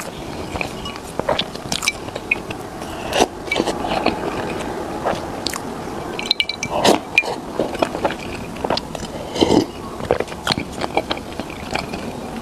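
Close-miked eating: irregular bites and wet chewing, with small crunches, smacks and scrapes.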